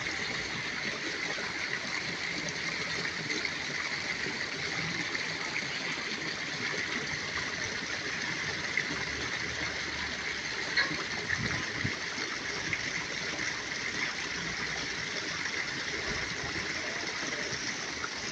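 Steady rush of water running in a small stone channel, an even hiss with no let-up. A few faint ticks stand out a little after the middle.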